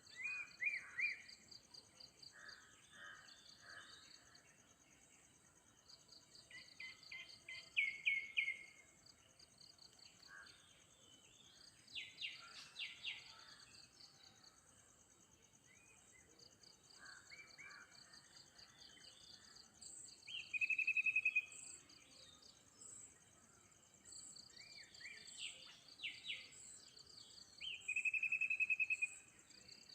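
Songbirds chirping and trilling in short phrases every few seconds, over a steady high-pitched trill of insects such as crickets.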